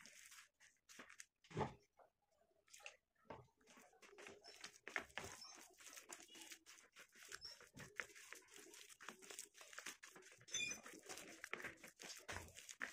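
Hands squeezing and kneading a wet clay paste in a steel plate, making faint, irregular squelches and crunches. One stroke about a second and a half in is louder than the rest.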